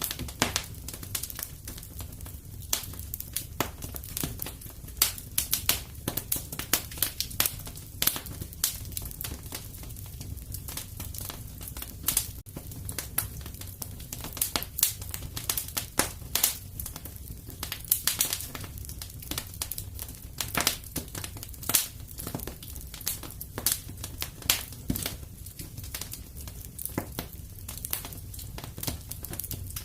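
Wood fire burning in a fireplace: a steady low rumble with many small, irregular crackles and sharp pops throughout.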